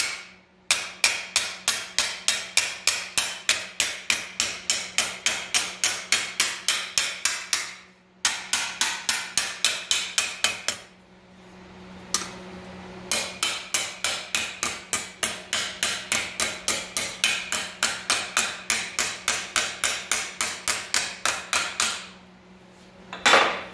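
Hand hammer striking a sheet-metal rocker-panel patch over a T-dolly clamped in a bench vise: quick metallic blows, about four a second, in long runs with a few short pauses. The edges of the patch are being rolled over to shape it to fit.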